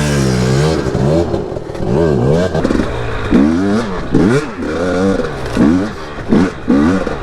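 Two-stroke dirt bike engine revved in short blips, about once a second, its pitch rising and falling each time.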